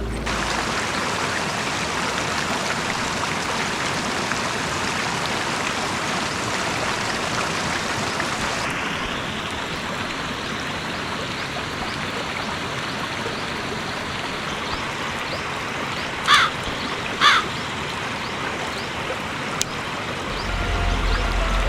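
Steady rushing of a forest stream. Two short bird calls come about a second apart near the end.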